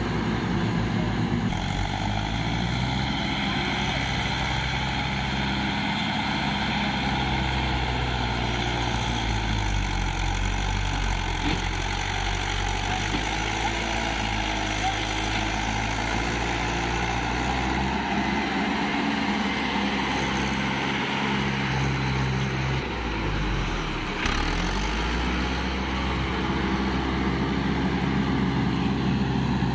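Swaraj diesel tractor engine labouring under the load of a full sand trolley, its revs rising and falling as it pulls through mud and water. About three-quarters of the way through, the engine note sags, then picks back up.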